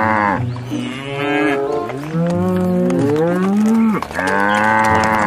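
Cattle mooing: a run of long moos one after another, several rising and falling in pitch, with two calls overlapping in the middle.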